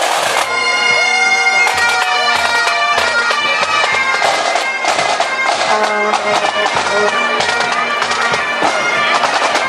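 Pipe band playing a march: bagpipes sounding the tune over their steady drone, with snare drums beating in time.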